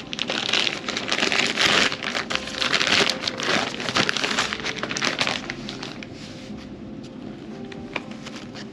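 Crinkly packaging being handled and rustled, a dense crackling with many small clicks. It is loud for about the first five seconds, then dies down to a quieter rustle.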